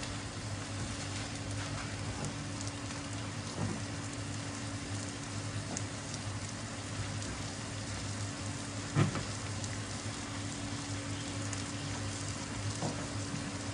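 Coarsely blended chilli paste frying in hot olive and sunflower oil: a steady sizzle with scattered small pops and one louder knock about nine seconds in.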